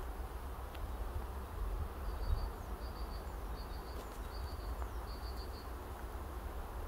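Wind buffeting the microphone over a steady outdoor hiss, with a small bird repeating a short, high three-note call about five times in the middle.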